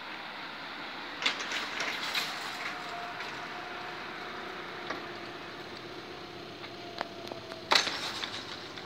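Level-crossing barrier drive running as the striped boom moves, a steady mechanical hum, with rattling and knocks as it starts and a loud clunk near the end.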